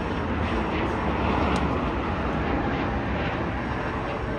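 Jet airliner climbing out after takeoff, its engines a steady, even noise.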